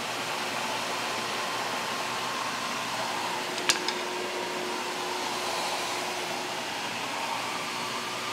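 Shop vac running steadily, pulling a vacuum on a log splitter's hydraulic tank so the oil stays in while the pump's suction hose is off. A single sharp click about four seconds in.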